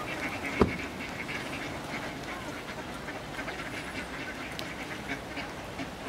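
A crowd of mallard ducks quacking and chattering together as they jostle for food, with one sharp thump about half a second in.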